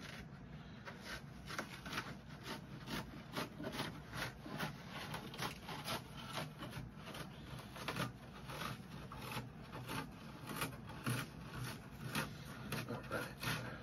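Glued carpet being peeled off the wooden edge of a speaker cabinet, the backing tearing away from the adhesive in a steady run of short, irregular rips and crackles.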